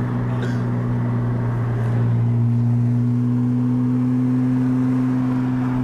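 Porsche Cayman S flat-six with an Armytrix exhaust (headers, sport cats, titanium cat-back) droning steadily at an even cruise, heard inside the cabin. It grows a little louder about two seconds in.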